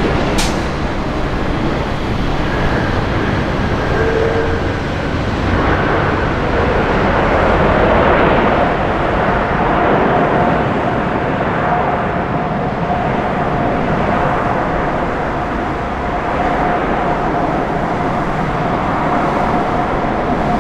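Jet engines of an Airbus A380 (Engine Alliance GP7200s) on the landing rollout: a loud, steady rumble that swells from about six seconds in, peaks around eight to ten seconds and then eases back, with a steady whine running through the second half.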